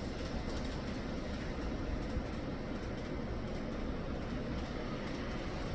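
N-gauge model train running along its track, a steady rumble with faint clicks from the rail joints.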